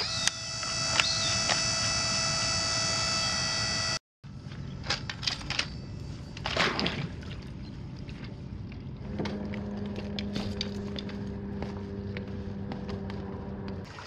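The Bottom Feeder battery-powered pool vacuum's thrust motor spinning its propeller in open air with a steady whine, right after its power connector is tightened. After a brief break, the vacuum at work in the pool, with scattered clicks and knocks and a steady low hum that starts about nine seconds in.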